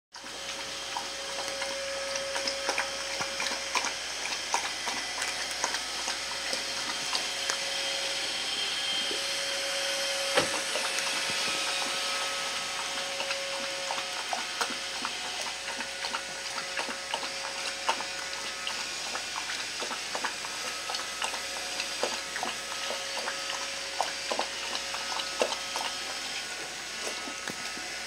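Kitten crunching dry cat kibble: many small, sharp, irregular crunches and clicks over a steady background hiss.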